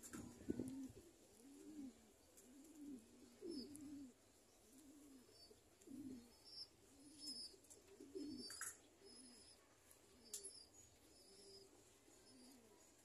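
Domestic pigeons cooing: a steady run of faint, low coos, each rising and falling, one after another about once a second.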